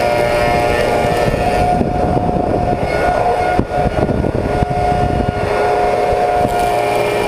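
Slab surfacing machine's cutter head, fitted with six replaceable insert knives, running and milling a willow slab: a loud, steady machine whine over the noise of cutting, with a brief dip and a change in pitch about halfway through.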